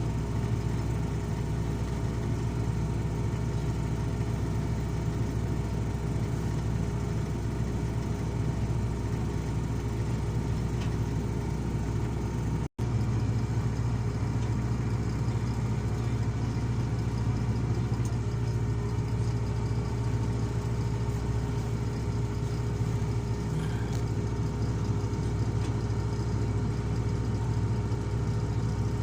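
Heavy diesel engine running steadily at a constant speed, with a momentary break about halfway through.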